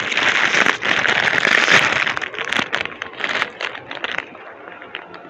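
Ruffles potato chip bag being pulled open and crinkled: a loud, dense crackling rustle for about two seconds, then lighter, scattered crinkles as a hand reaches into the bag, fading about four seconds in.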